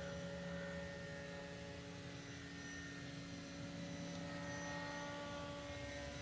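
Electric RC model biplane's outrunner motor and propeller heard in flight: a faint, steady pitched hum made of several held tones.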